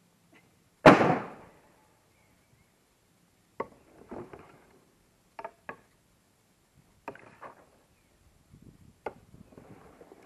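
Chunks of firewood being handled: one heavy thud about a second in, then several lighter wooden knocks and clatters.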